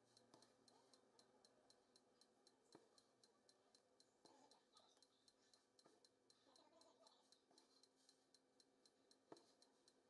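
Near silence: a few soft clicks of hand embroidery, the needle and stranded cotton thread being pulled through the fabric, over a faint steady ticking about four times a second.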